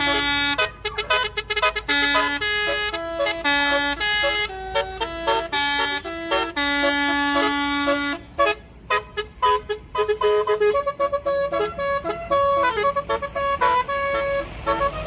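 Bus musical horn (basuri/telolet type) playing a melody of pitched notes that step up and down. The early notes are longer; from about eight seconds in they come shorter and quicker, over a low steady rumble.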